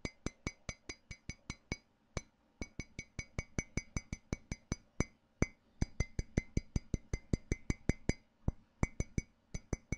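A ceramic cup being tapped quickly and evenly, about five ringing taps a second, with two short pauses.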